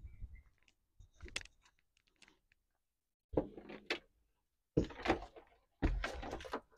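Loose electrical wires being picked up and handled on a car's bare metal floor pan: small clicks and rattles at first, then three short bursts of rustling and scraping.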